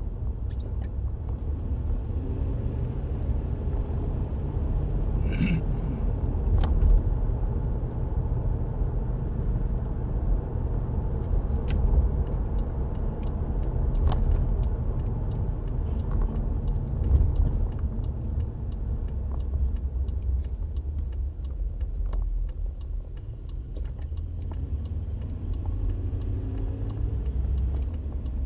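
2003 Nissan Frontier pickup running, with a steady low rumble throughout. About twelve seconds in, a fast, even ticking starts and carries on alongside it.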